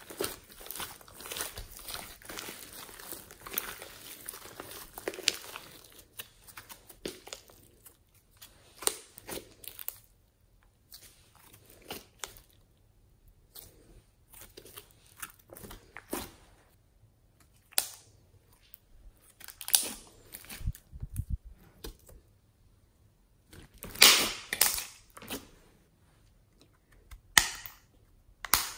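White fluffy slime squeezed, stretched and folded by hand, its trapped air crackling and popping. The crackling is dense for the first several seconds, then comes as separate pops every second or two, a few of them louder.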